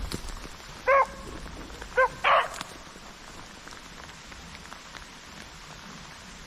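Rabbit-hunting dogs barking: two short barks about a second apart and a rougher third just after the second, then a lull.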